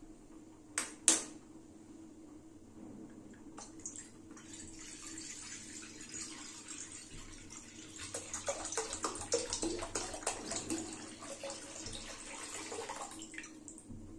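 Water poured from a plastic bottle into a metal kadai, splashing onto chicken liver pieces for about ten seconds and stopping near the end. Two sharp knocks come about a second in.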